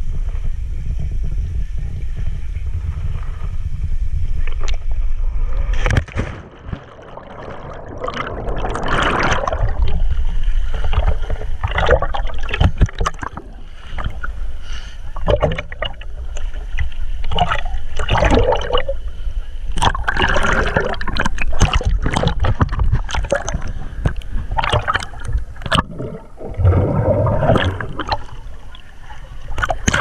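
A steady low rumble on a waterproof action camera's microphone, which about six seconds in gives way to irregular water splashing, sloshing and gurgling as the camera moves at and under the surface of the pool.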